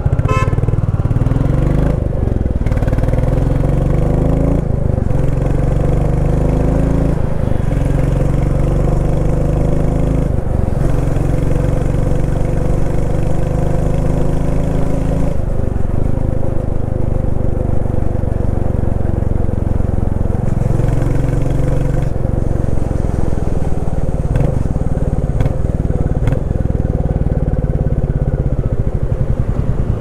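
Royal Enfield Classic 350's single-cylinder engine thumping through its exhaust while riding. Its pitch rises as it pulls and drops off several times, as at gear changes.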